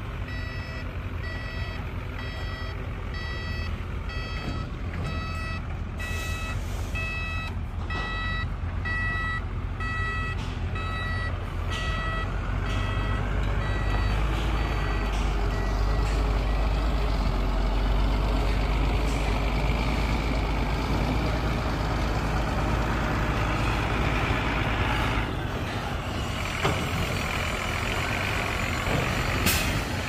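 Heavy dump truck reversing: its back-up alarm beeps about once a second over the low running of its diesel engine. The beeping fades out about halfway through while the engine grows louder, and a short burst of noise comes near the end.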